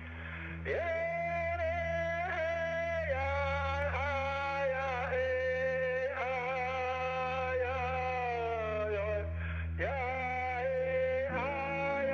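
Music: a solo voice singing long, wavering held notes that glide between pitches, over a steady low drone with a soft regular pulse. The voice comes in about a second in and breaks off briefly near the end before coming back.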